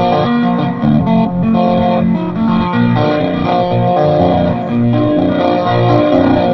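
Electric guitar played through a Peavey amplifier: a solo of picked melody notes over low bass notes.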